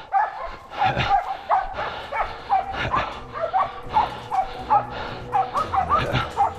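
Hunting dogs barking over and over, about two short, high barks a second, baying at a wild boar they have found and are holding.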